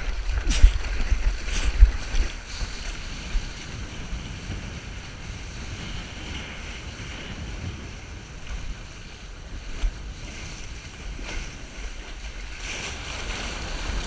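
Seawater sloshing and splashing against a surfboard and the action camera on it while paddling and riding small waves, with wind buffeting the microphone. Heavy low thumps of water in the first two seconds, and louder whitewater spray near the end.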